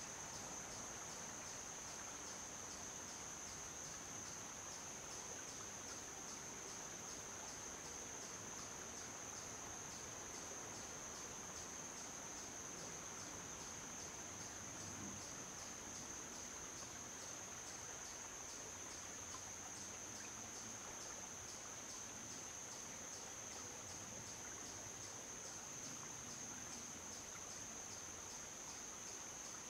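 Insects trilling: one steady high-pitched tone with a fast, even pulse, unbroken, over a faint wash of outdoor background noise.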